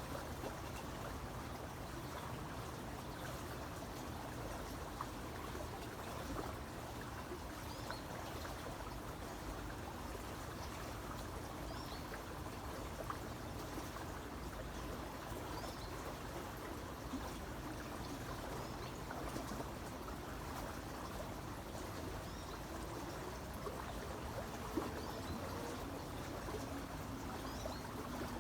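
Creek water flowing and trickling steadily over stones, with a few faint, brief bird chirps now and then.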